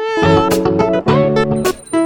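Background music: a guitar-led track with chords that change every half second or so over a steady beat.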